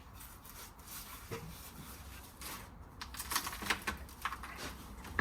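Light clicks and taps of hand tools and metal parts being handled during engine work: one tap early, then a quick cluster of clicks about halfway through.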